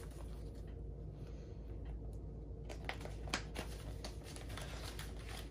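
Paper banknotes and plastic binder envelopes being handled: soft rustling with a few light clicks and taps, mostly in the second half, over a steady low hum.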